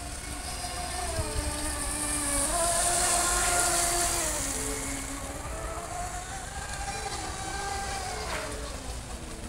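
Small remote-control speedboat whining as it runs across a pond, its pitch shifting with the throttle, with a hiss of spray. It grows louder as it passes close about three to four seconds in, then eases off.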